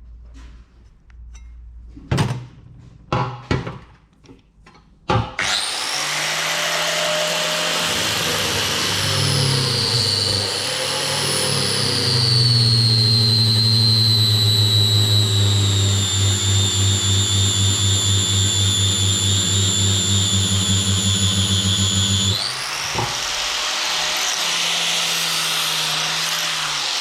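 A few knocks of metal being handled, then an electric power tool starts and runs loudly for the rest of the time. Its high motor whine drops slowly as it works under load, with a pulsing stretch partway through and a brief dip in level near the end.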